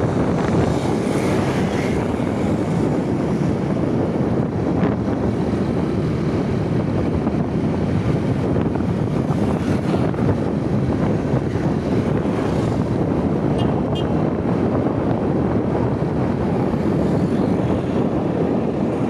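Steady wind rush on the microphone of a moving motorbike, with the bike's engine and tyre noise under it.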